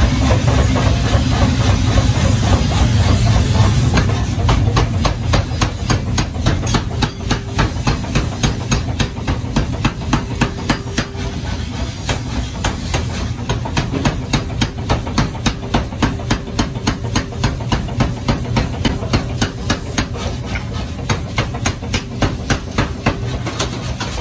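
Steady hiss of a forge furnace, then, starting about four seconds in, a flywheel-driven mechanical power hammer striking a red-hot pick-axe head in rapid, regular blows, about three a second.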